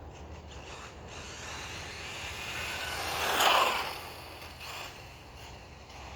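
Nitro RC short course truck driving past, a rushing noise that swells, peaks sharply about halfway through, then fades.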